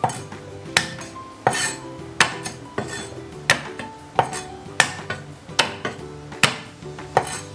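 Chinese cleaver chopping garlic cloves on a cutting board, about ten even strokes roughly three-quarters of a second apart, mincing the cloves toward fine bits.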